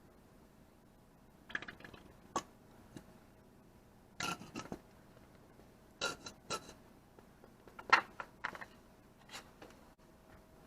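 Metal tools and parts being handled during a gearbox oil change: a series of sharp clinks and short clatters at irregular intervals, the loudest a little past the middle.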